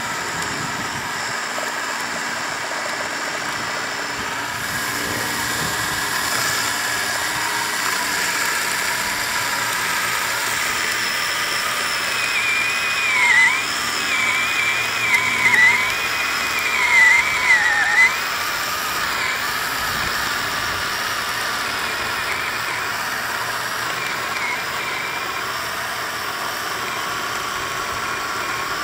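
Ryobi CS1800 18-volt cordless chainsaw running with a steady high motor whine. In the middle the pitch drops and recovers several times as the chain bogs down cutting into a tree stump.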